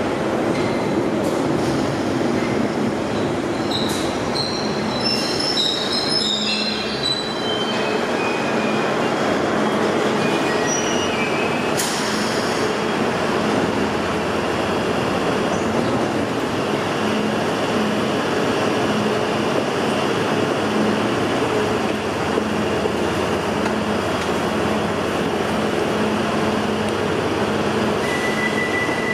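London Underground 1972 Stock tube train braking to a stop at a platform: a high squeal steps down in pitch over a few seconds as it slows, followed by a sharp click. Then comes a steady rumbling noise with a low pulsing hum as the train stands, and a steady high tone starts near the end.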